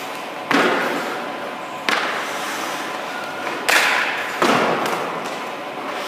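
Hockey goalie's skates and leg pads hitting and scraping the ice during crease movement drills: four sudden scrapes, each trailing off in a hiss, about a second or two apart.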